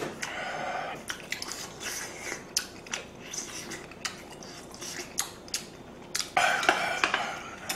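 Close-miked chewing with wet mouth clicks and smacks, a person eating a mouthful of stew, with light clicks of utensils on dishes; louder and denser near the end.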